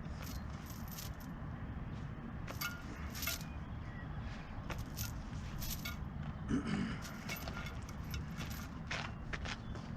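Light metallic clinks and jingles in small irregular clusters, over a steady low rumble.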